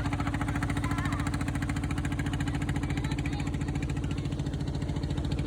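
A small engine running steadily at a constant speed, with a fast even beat.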